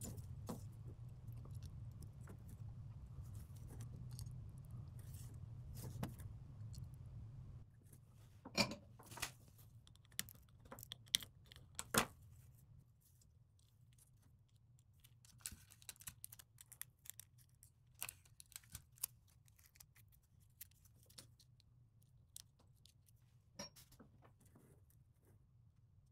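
Faint low hum for the first seven seconds or so, then scattered sharp clicks and light metallic ticks from small tools and electronic components being handled while assembling a circuit board.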